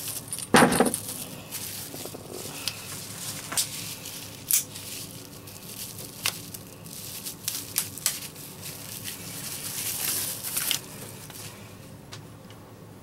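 Packaging being handled while a kayak rudder hand-control kit is unpacked: plastic bags crinkling and rustling, with many sharp clicks and knocks of small plastic and metal parts. The loudest knock comes about half a second in, and the rustling swells around ten seconds in.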